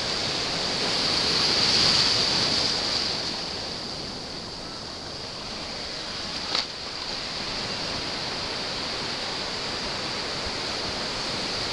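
Ocean surf in shallow water: a steady rush of breaking waves and foam, swelling about two seconds in. A single short click about six and a half seconds in.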